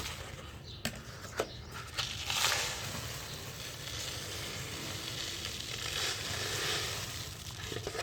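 Dry clumps of brick dirt crumbling and being crushed, a gritty, crunchy crackle with a few sharp snaps in the first second and a half and louder crunches about two and a half seconds in and again near the end.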